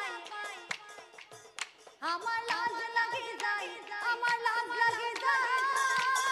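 Live Assamese nagara naam folk music: a woman singing with sliding, ornamented pitch over a steady run of drum strikes. The music drops quieter for a moment, then comes back in fully about two seconds in.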